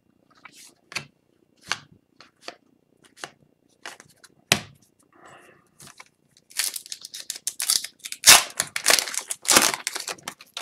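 Foil wrapper of an Upper Deck Series 2 hockey card pack torn open and crinkled by hand. The tearing and crinkling come thick from about halfway in, with the loudest tears near the end. Before that, scattered light taps and clicks of handling.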